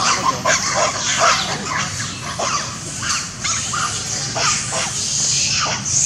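Macaques calling: a scatter of short squeaks and chirps, many sliding quickly up or down in pitch.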